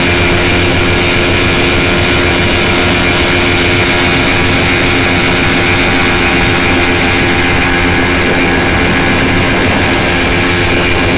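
Restored 1970 Mercury 20 hp two-cylinder two-stroke outboard motor running steadily at a constant speed.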